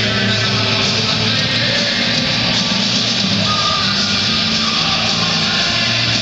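Loud rock music with electric guitar, playing without a break.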